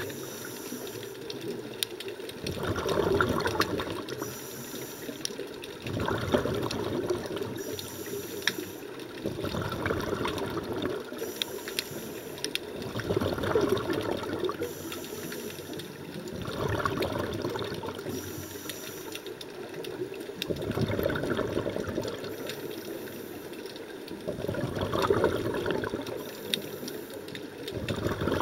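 A scuba diver breathing through a regulator underwater: a short high hiss on each inhalation, then a louder bubbling rush of exhaled air, repeating about every four seconds.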